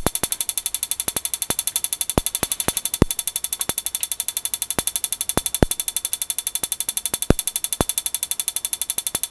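High-voltage spark igniter firing a pulse jet's spark plug: a fast, even train of sharp sparking clicks, about ten a second, with now and then a louder snap.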